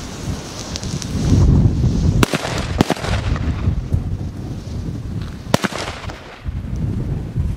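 Three Chiarappa Mini Thunder P1 firecrackers going off one after another. Their preburning fuses hiss and spark, then two sharp bangs come about two seconds in, close together, and a third follows about three seconds later. Wind rumbles on the microphone.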